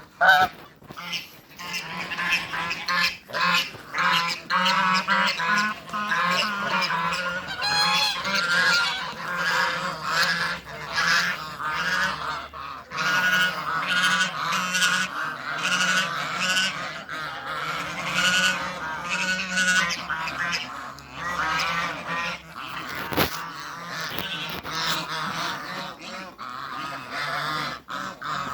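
Toulouse geese honking, a male and a female calling back and forth in a steady stream of overlapping honks.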